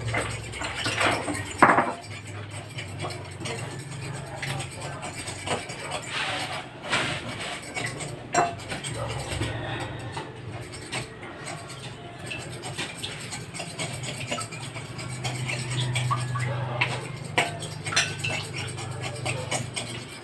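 A utensil clinking and scraping against a bowl in irregular taps as eggs and canned tuna are stirred together.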